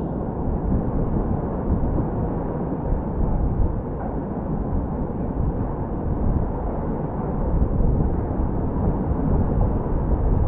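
Steady low rumbling noise that rises and falls unevenly, like wind buffeting a GoPro HERO8's microphone.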